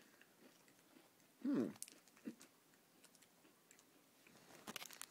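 Chewing and crunching a crisp sandwich cracker with faint small crunches, broken about a second and a half in by a short voiced 'mm' that dips and rises in pitch. A run of crisp crackles comes near the end.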